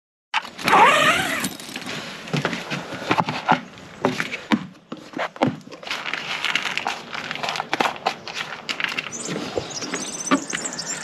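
Hens calling, loudest with one bending call about a second in, over the scraping and clatter of a metal spoon against a plastic tub and bowls as soaked grain feed is scooped out.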